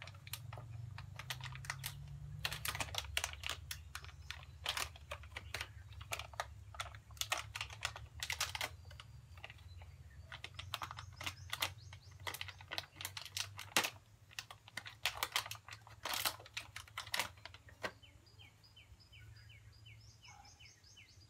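Plastic packaging crinkling and crackling in the hands as it is torn open: a run of irregular sharp crackles. Near the end a bird chirps in a quick repeated series.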